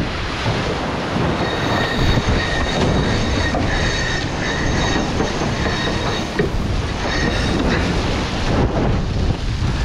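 Extreme 40 racing catamaran sailing at speed: a loud rush of water and wind, with a high, steady whine from the boat. The whine comes and goes from about a second and a half in until near the end.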